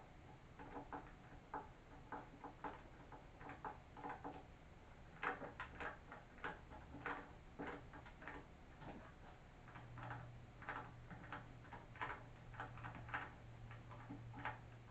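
Hand screwdriver turning a small screw to fasten a mounting clip, giving faint, irregular clicks and ticks, a couple a second.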